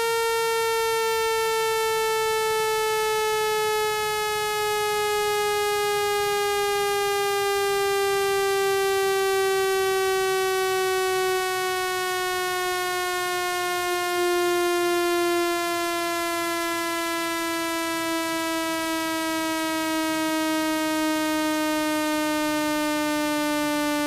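Synthesized buzzy tone, rich in overtones, gliding slowly and steadily downward in pitch at a constant level. It is a speaker-cleaning tone, played loud to vibrate a phone speaker's diaphragm and push out trapped water.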